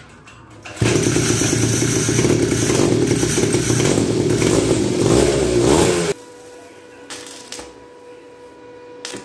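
Small 49cc two-stroke mini ATV engine running loudly through a homemade exhaust pipe. It comes in abruptly about a second in, revs up near the end and cuts off suddenly about six seconds in. A faint steady hum remains after it.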